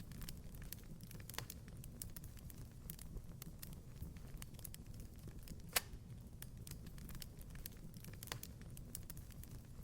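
Wood fire crackling in a fireplace: irregular small pops and snaps over a low steady rumble, with one louder pop about six seconds in.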